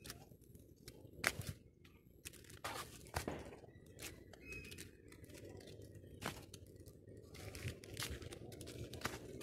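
Footsteps in flip-flops on concrete steps strewn with dry leaves: irregular crunches and scuffs, several a few seconds apart, over a low steady rumble.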